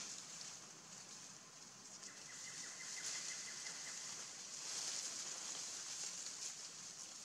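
Forest ambience: a faint, steady high-pitched hiss that swells and fades, with a thin buzzing trill for about two seconds near the middle.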